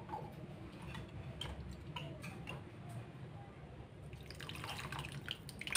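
Chicken pieces simmering in broth in a large aluminium wok: scattered small bubbling pops and drips over a low steady hum, growing busier after about four seconds. A single sharp clink right at the end.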